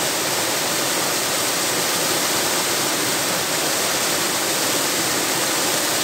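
Waterfall rushing steadily down a rock face and splashing into a pool.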